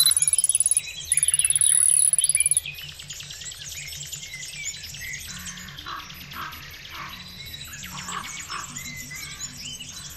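Background music with a steady beat and bird-like chirps running through it. For the first two and a half seconds a loud, very high-pitched pulsing buzz sits on top, breaking off once for a moment under a second in.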